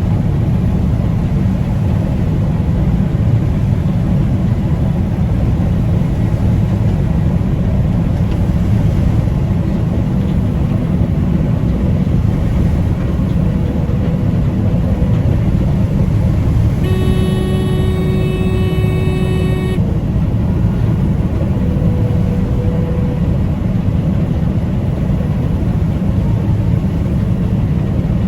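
Combine harvester running steadily while harvesting soybeans, heard from inside the cab as a loud, even low drone. About two-thirds of the way through, a steady horn-like tone sounds for about three seconds.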